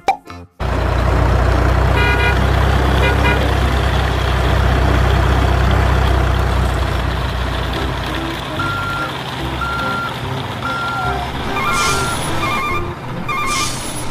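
Truck engine running with a loud, low rumble, joined in the second half by four reversing beeps about a second apart. Near the end a repeating ringing chime starts up.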